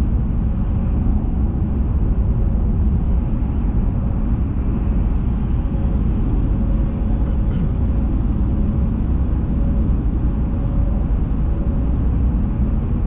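Steady engine and road rumble of a vehicle driving along at an even speed, with a faint steady whine above it.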